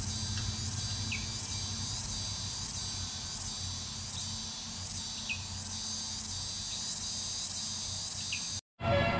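Steady insect chorus, high-pitched and pulsing about twice a second, with a few brief chirps and a low hum beneath. Near the end it cuts off abruptly and a vehicle engine starts up in its place.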